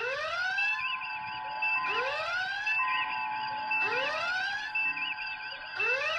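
Star Trek original-series red alert klaxon sounding: a rising whoop repeating about once a second, over the bridge set's warbling background beeps.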